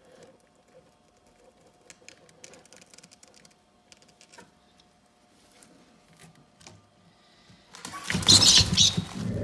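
Faint scratching and light clicking of a rat moving about on the wood and bark substrate of a terrarium, then about eight seconds in a sudden loud scuffle as a boa constrictor strikes and seizes the rat.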